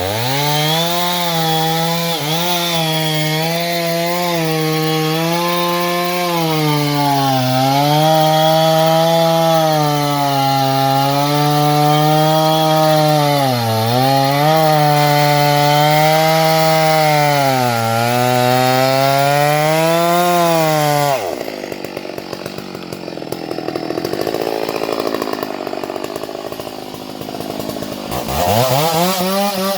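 A 650-size chainsaw cutting timber at full throttle, its engine note dipping several times as the chain bites into the wood. About two-thirds of the way through the engine note drops away suddenly, leaving a quieter, rough noise, then the saw revs back up near the end.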